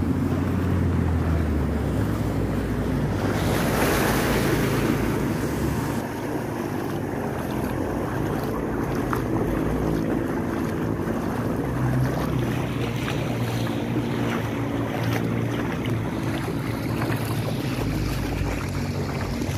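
A motor vehicle's engine running as it moves through floodwater, with water washing and splashing around it. There is a louder rush of water about four seconds in.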